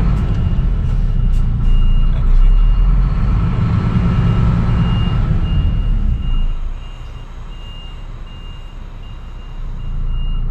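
MAN truck's diesel engine running, heard from inside the cab, with a reversing alarm beeping evenly a little under twice a second as the truck backs up. The engine rumble eases off about six and a half seconds in while the beeping carries on.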